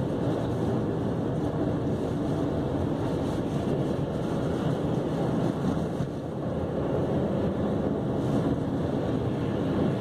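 Steady road noise inside a moving Chevrolet Cavalier's cabin at highway speed: tyres running on snow- and slush-covered pavement under the low drone of the engine.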